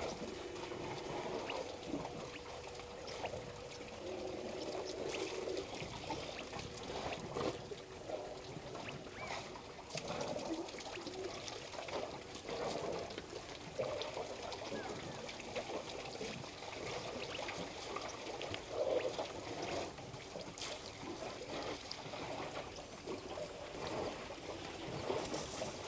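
African elephants drinking at a waterhole: irregular splashing and pouring of water as they draw it up their trunks and empty it into their mouths.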